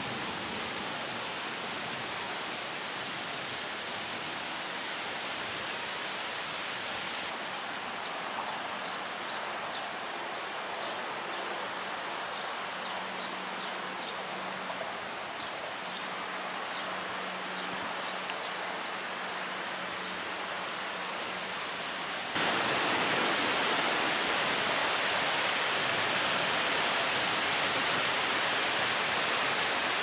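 Wind blowing across the microphone on a windy riverbank, a steady rushing hiss that changes abruptly twice and gets louder about two-thirds of the way through. In the middle stretch, faint high chirps and a low steady hum sit under the wind.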